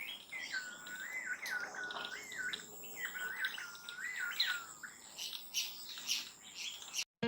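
A wild bird singing a quick run of looping whistled notes for about five seconds, followed by shorter, higher chirps, over a thin steady high tone; the sound cuts off just before the end.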